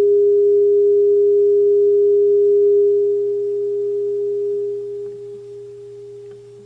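Steady loudspeaker sine tone of about 440 Hz sounding from a pipe. About three seconds in it grows quieter, then drops again about five seconds in and ends much fainter. The sliding quarter-wave resonator side branch is being tuned to the length that cancels that frequency.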